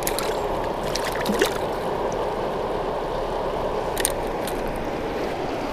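Steady rush of water from a river spillway, with a few light clicks about a second in and again about four seconds in.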